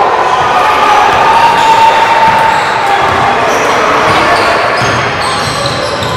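Live basketball game in a gym: a ball dribbled on the court under a steady din of voices, with short high squeaks starting about five seconds in.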